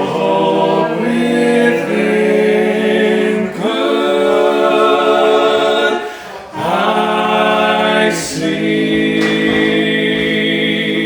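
Small mixed group of men's and women's voices singing a gospel hymn a cappella in harmony, holding long chords of a few seconds each with brief breaths between phrases.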